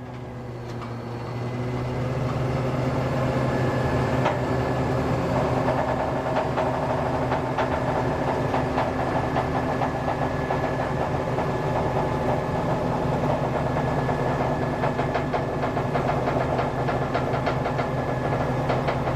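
Truck engine and hydraulic pump of an HSL20 lift body running steadily while the platform is raised. The drone builds over the first two seconds, then holds even.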